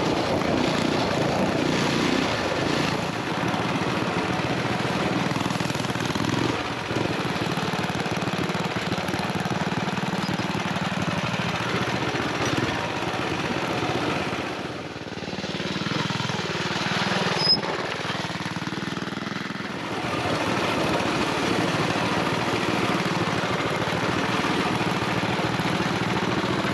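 Mini bike's small single-cylinder engine running under way on a dirt trail, heard from the bike itself. It eases off about halfway through and picks back up a few seconds later, with one sharp click during the lull.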